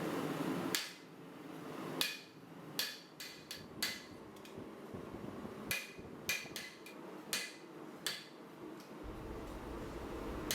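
Hammer striking hot high-carbon leaf-spring steel on an anvil to flatten it, about a dozen irregular blows, each with a short metallic ring. A steady rushing noise cuts off under a second in.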